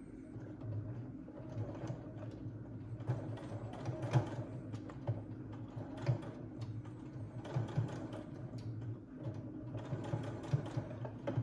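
Electric sewing machine stitching through folded cotton fabric, running in short runs that stop and start several times, the needle clattering rapidly.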